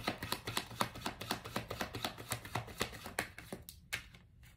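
A deck of tarot cards being shuffled by hand: a fast run of light clicking taps that thins to a few scattered taps near the end.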